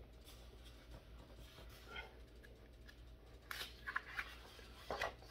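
Paper pages of a coloring book being turned by hand: a few faint, short rustles and flaps of paper.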